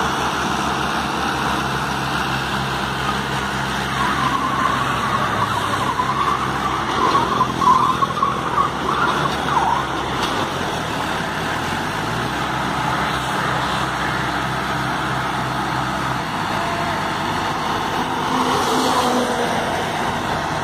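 Diesel tractor engines running steadily under load as one tractor tows another hauling a loaded sugarcane trolley, with road noise from passing traffic.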